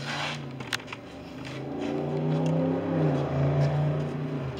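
A motor vehicle's engine running, growing louder and rising slightly in pitch over a couple of seconds, then cutting off suddenly near the end. A single sharp click comes just before a second in.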